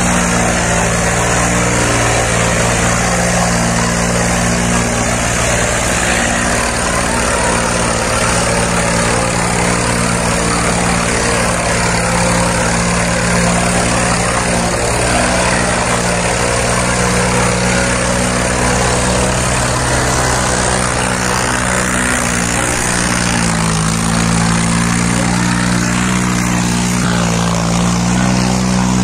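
John Deere 5310 tractor's diesel engine running hard under heavy load as it drags two disc harrows, a steady loud drone whose pitch sags briefly about three-quarters of the way through and then picks up again.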